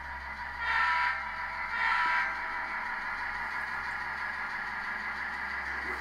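Two short horn blasts from an HO-scale model train, about a second apart, then its steady running sound as the train pulls in slowly.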